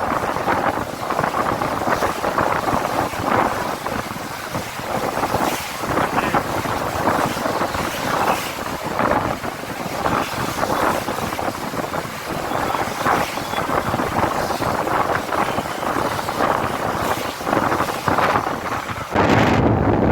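Road traffic noise with wind buffeting the microphone, fluttering unevenly throughout. About 19 seconds in, a louder, deeper wind rumble takes over.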